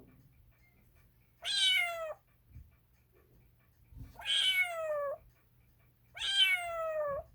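Domestic cat meowing three times, each meow falling in pitch, a couple of seconds apart.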